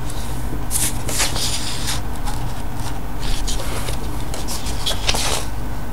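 Paper rustling and rubbing as a comic book's pages and cover are handled, in several short bursts over a steady low hum.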